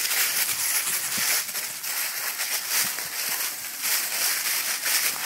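Dry fallen leaves crunching and rustling under footsteps and the kayak cart's wheels, pulsing about twice a second at walking pace.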